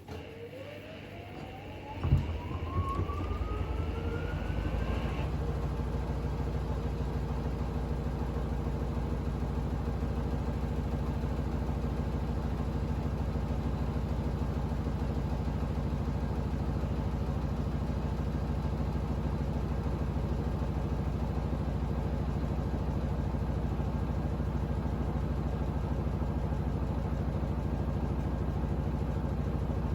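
Hoover H Wash 300 washing machine's motor whine rising as the drum speeds up into a spin, with one loud thump about two seconds in. The drum then spins steadily with a very unbalanced load of bedding.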